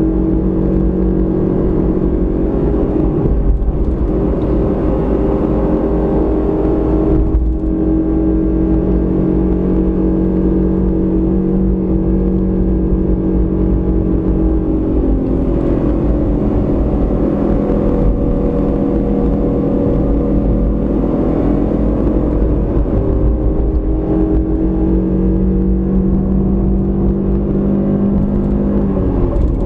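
Car engine and tyre noise at road speed, heard from inside the car: a steady engine drone over a heavy low rumble, its pitch shifting down and up a few times as the car slows and speeds up.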